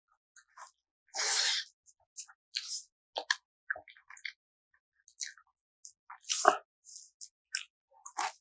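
Close-miked mouth sounds of a person eating pakbet vegetable stew: irregular wet chewing smacks and clicks. There is a longer breathy burst just after a second in, and the loudest smack comes near the end.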